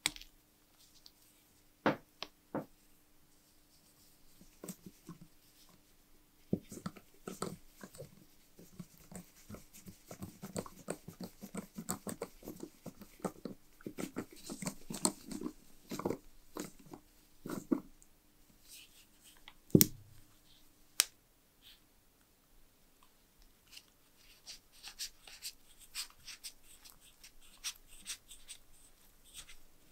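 Small metal clicks, taps and scraping as a screwdriver drives screws into the metal mounting plate of a brass monocular body and the parts are handled. There is one sharp click about two-thirds of the way through.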